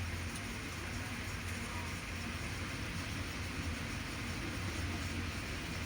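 Hyundai hydraulic excavator's diesel engine running steadily, a low hum.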